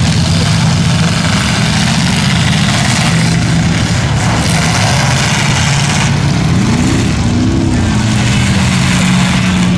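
Several demolition-derby pickup trucks' engines running loudly together, with one engine revving up and back down twice about seven seconds in.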